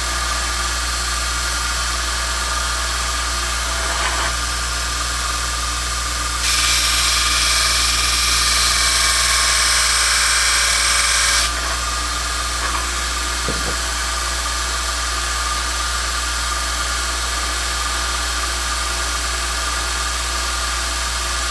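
Electric grinder motor running steadily. For about five seconds near the middle the pitch goes up into a bright, harsh hiss as the knife's steel backspring (rocker spring) is ground down flush with the scales to make the half stop.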